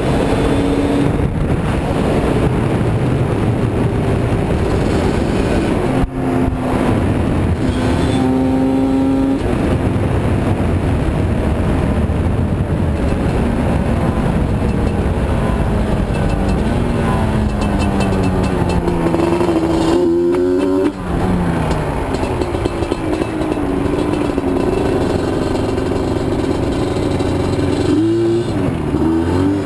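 Yamaha Banshee quad's parallel-twin two-stroke engine, fed by a single Trinity 2-into-1 carburetor, pulling along the road under way, with steady wind rush. The engine pitch jumps at gear changes about six seconds and about twenty-one seconds in, slides as the speed changes in between, and wavers with short revs near the end as the quad slows off the road.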